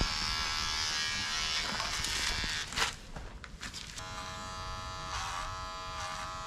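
Electric hair clipper buzzing steadily as it cuts hair close to the scalp, its hum shifting slightly about four seconds in, with a few short clicks near the middle.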